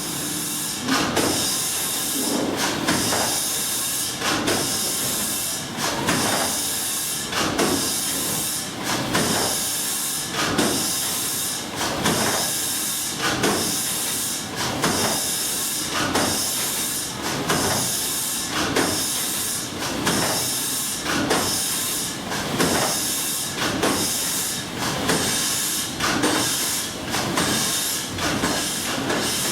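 The Escher Wyss two-cylinder compound steam engine of the paddle steamer Blümlisalp running at steady speed, with hissing steam and a regular beat of about one stroke a second as the cranks turn the paddle wheels.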